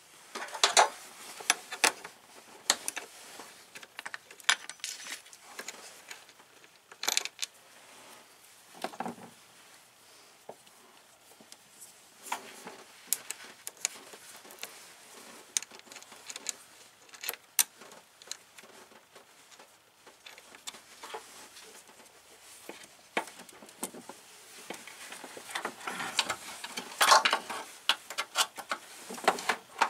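Scattered metallic clicks and clinks from a wrench and battery cable terminal hardware being handled while a cable is fastened to the battery post, coming more thickly near the end.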